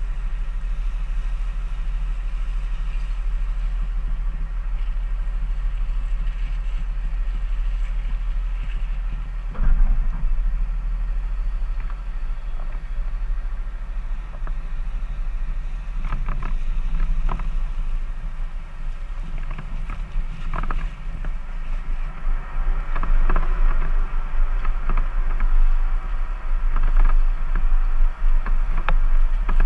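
Jeep running slowly over rough off-road ground: a steady deep engine rumble with scattered knocks and creaks, which grow busier in the last third.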